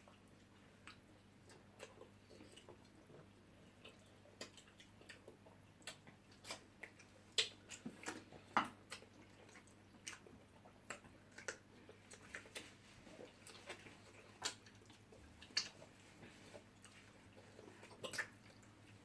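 Faint eating sounds: irregular sharp clicks and smacks of people eating fufu and soup, a couple of them louder about seven and eight and a half seconds in.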